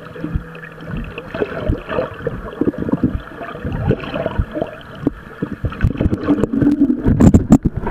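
Muffled underwater sound picked up by a camera in a waterproof housing in a lake: water movement with many irregular knocks and taps against the housing, growing louder and busier near the end.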